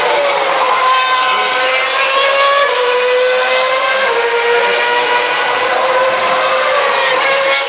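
Formula One car engine running at high revs, a high, steady note that drops slightly in pitch a few times.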